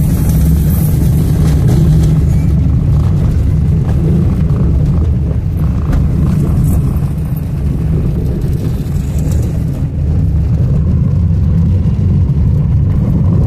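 Steady low rumble of a car driving on a dirt road, heard from inside the cabin: engine and tyre noise.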